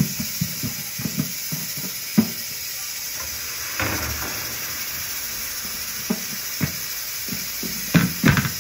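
Msemen flatbread frying in a hot pan, a steady sizzle. It grows a little louder about four seconds in as another square of dough goes into the pan, with several soft knocks and pats as dough is handled.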